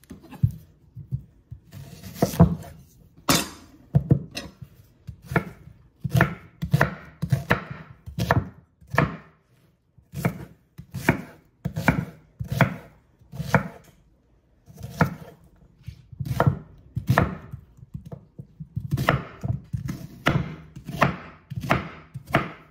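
Chef's knife chopping an onion on a wooden cutting board: a run of sharp knife strikes against the board, about one or two a second, with a short pause partway through.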